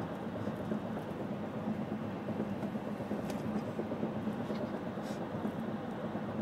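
Car driving along, its steady road and engine noise heard from inside the cabin, with a low hum.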